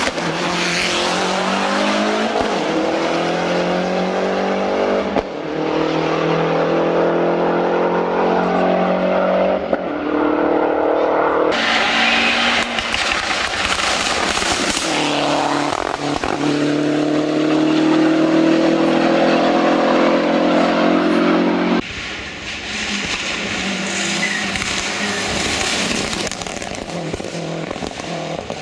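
Lancia Delta Integrale's turbocharged four-cylinder engine accelerating hard on a hill-climb course. The revs rise again and again and drop back at each gear change, and the sound changes abruptly at several edit cuts.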